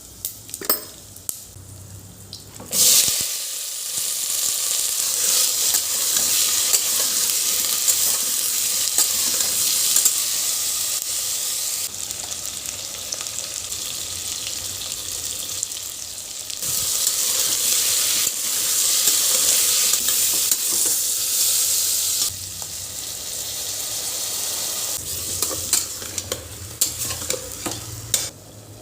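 Food sizzling in hot oil in a pan, starting suddenly about three seconds in and changing in strength several times, with sharp clicks of utensils at the start and near the end.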